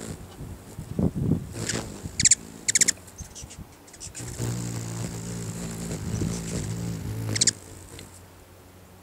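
Hummingbird at a nectar feeder: a few quick high chirps, then its wings hum in a steady buzz for about three seconds while it hovers. The buzz cuts off suddenly with a last chirp as it leaves.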